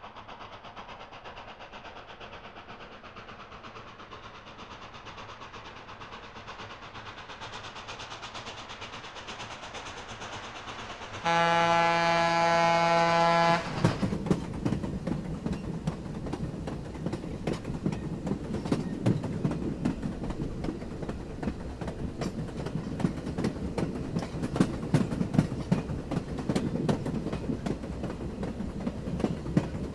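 HO scale model trains running: a steady whirring rumble of wheels on track, then about eleven seconds in a loud single-note train horn sounds for about two seconds. After that comes a dense, uneven clicking of model train wheels over the rails with a low rumble underneath.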